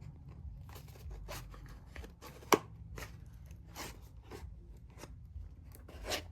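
Packing material around a boxed weather radio being unwrapped and handled: scattered crinkles and rustles, with one sharp click about two and a half seconds in.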